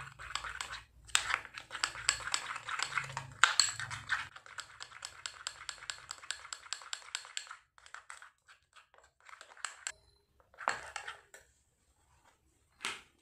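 Metal spoon stirring a wet paste in a glass bowl, clinking and scraping against the glass in quick strokes about six a second. The stirring slows after about seven seconds and stops, leaving a few scattered clinks near the end.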